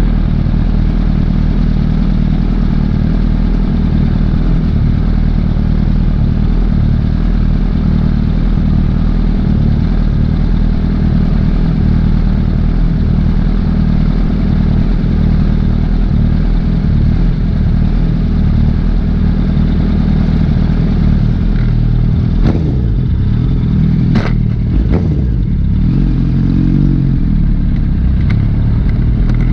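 Liter-class sportbike engine running steadily under cruising load over a steady rushing noise. From about 22 seconds in the engine note changes, rising and falling in pitch a few times with a swell near the end.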